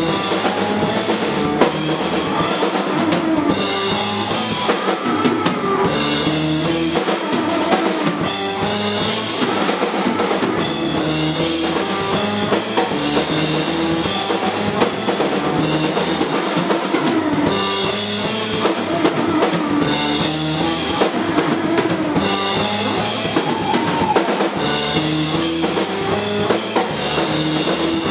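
Live rock band playing: distorted electric guitar, electric bass and a drum kit with kick, snare and cymbals, loud and steady throughout.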